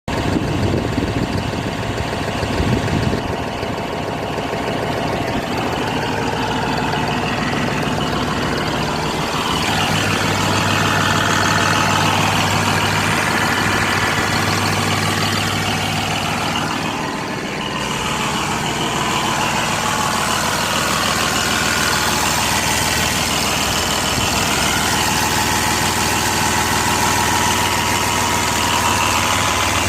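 New Holland 5620 tractor's CRDI common-rail diesel engine running with a misfire. A steady low hum comes into the engine note about ten seconds in, and the sound dips briefly near eighteen seconds.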